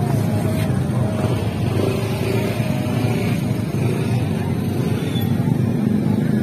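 Motor scooter engine running as a scooter rides past close by, over a steady low rumble of engines and outdoor noise.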